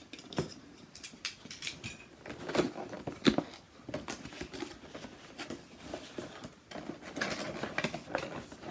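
A cardboard headphone box being cut open and handled: irregular clicks, scrapes and rustles of card and tape, with two sharper knocks a little after two and a half and three seconds in.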